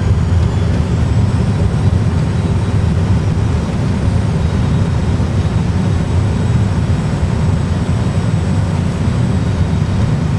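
Simulated Airbus A320 engine in reverse thrust, with runway rumble during the landing rollout, played through a full flight simulator's sound system. It is a loud, steady low rumble.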